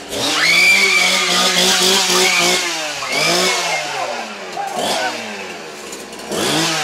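Petrol chainsaw revving repeatedly, held high for about two seconds and then revved up and let fall several more times, with people screaming over it.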